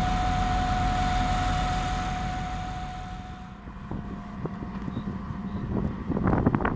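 Two M62 'Szergej' diesel locomotives (MÁV class 628) at the head of a freight train, their two-stroke V12 engines running with a steady tone. About three and a half seconds in, this drops to a wind rumble on the microphone with irregular thumps, which crowd together near the end.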